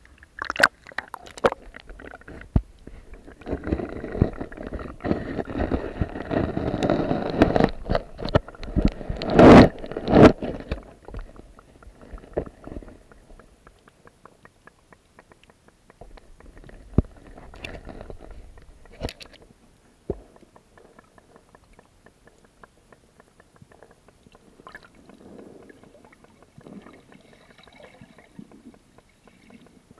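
Water sloshing and gurgling around a camera as it goes under the sea surface, with sharp clicks and knocks, loudest in the first ten seconds or so. After that it turns to quiet underwater ambience with a few scattered clicks.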